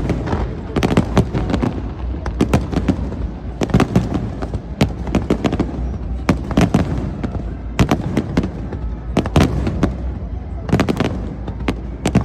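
Aerial fireworks going off in a dense, irregular barrage: many sharp bangs, several a second in clusters, over a steady low rumble.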